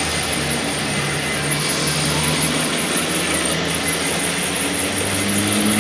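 A machine or engine running steadily with a low hum over a broad hiss, its hum shifting higher near the end.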